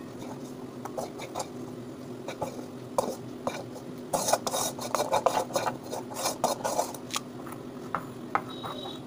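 A metal spoon scraping and knocking against a tilted wok as cooked vegetables are scraped out into a steel bowl. It starts as scattered taps, then turns into a dense run of scraping in the middle.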